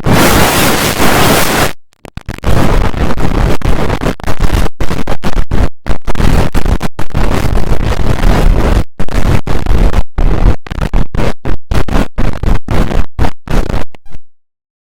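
Loud, harsh distorted noise with no clear tone, an edited render of a mock emergency alert alarm: one solid blast of just under two seconds, then a long stretch chopped by many short dropouts into stuttering pieces, cutting off shortly before the end.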